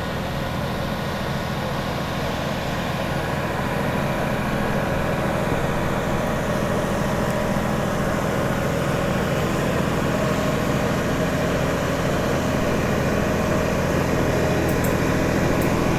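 Steady, unbroken engine drone with a low hum, growing slightly louder.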